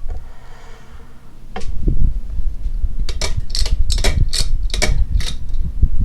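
Hunter Auberville 44-inch ceiling fan running up to speed: a click at the start and another about a second and a half in, then its draft buffets the microphone as a growing low rumble, with a regular whooshing sweep about three times a second through the second half.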